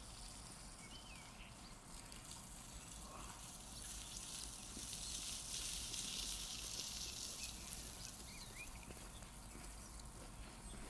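Quiet outdoor ambience: a steady high hiss that swells for a few seconds in the middle, with a few faint short chirps.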